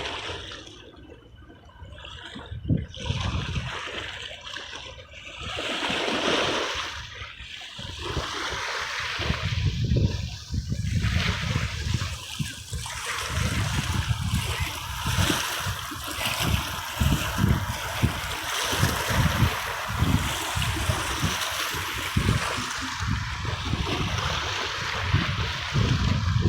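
Sea waves washing in and splashing, with water trickling and gurgling between them. The surf swells and falls back a few times in the first ten seconds, then runs on more steadily.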